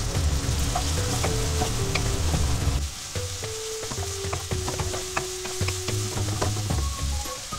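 Prawns and chicken sizzling in oil in a hot non-stick wok, stirred with a wooden spatula that clicks and scrapes against the pan. Background music with a steady bass beat plays under it and gets quieter about three seconds in.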